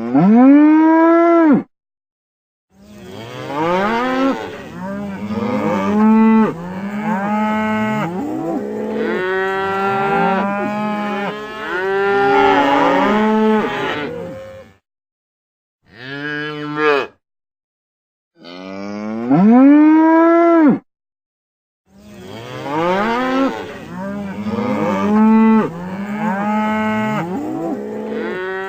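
Cattle mooing: several cows calling over one another in long moos that bend up and down in pitch, with single loud moos near the start and around two-thirds of the way through. The calls come in separate stretches cut off by abrupt gaps of dead silence.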